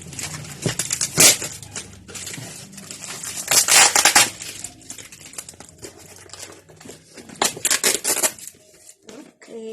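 Packaging being handled and unwrapped, crinkling and rustling, with three louder bursts of crackling about a second in, near the middle and toward the end.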